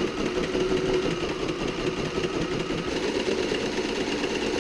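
Heavy-duty sewing machine running steadily, stitching through layers of sailcloth with a fast, even needle rhythm.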